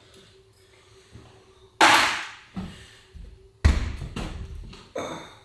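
Rivet gun setting mono rivets into the bus's kick plates: a few sharp knocks and thuds, each fading over most of a second, the loudest about two seconds in and again a little over three and a half seconds in.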